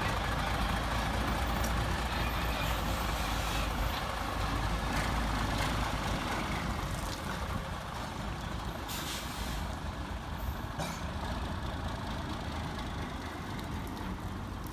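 Heavy tractor-trailer truck running as it moves slowly past, its low engine rumble easing after about seven seconds. A short air hiss about nine seconds in.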